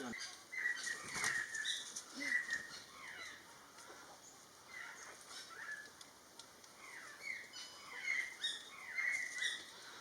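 Wild birds calling: a string of short chirps and quick downward-sweeping notes with thin high tweets among them, busier at the start and again near the end.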